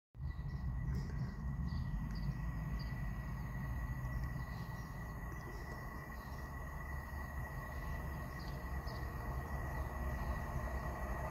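Faint outdoor ambience: a steady low rumble with a thin, steady high tone and scattered faint chirps.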